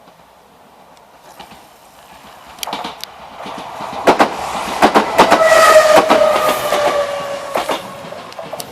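Enshu Railway electric train passing close by over a level crossing: the wheels knock over the rail joints in quick pairs, building to a peak about halfway through and then fading. A steady whine drops slightly in pitch as the train goes by.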